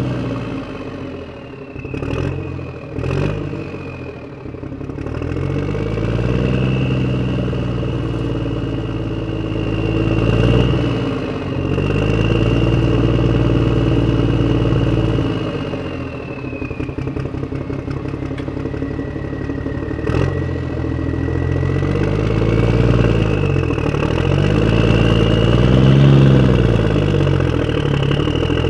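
Motor vehicle engine driving, its pitch rising and falling several times as it speeds up and eases off, with a high whine that follows the engine. Two sharp clicks come about two and three seconds in, and another about two-thirds of the way through.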